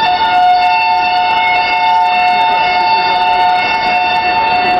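Railway station evacuation alarm sounding under test: a continuous, unwavering tone of two notes sounding together.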